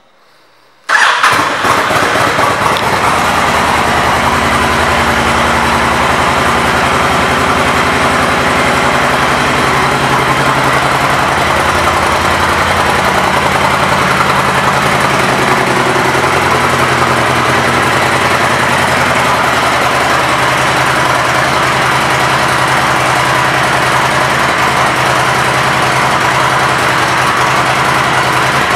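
Honda VTX 1300C's liquid-cooled V-twin motorcycle engine starting about a second in, then idling steadily.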